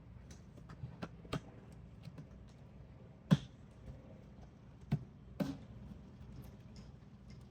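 Scattered light clicks and taps as headlight parts are handled and fitted together, a sharper knock about three seconds in.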